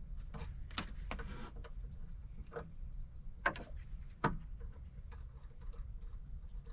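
Scattered light clicks and taps from hands and tools working a wiring connection, with two sharper knocks in the middle, over a steady low rumble.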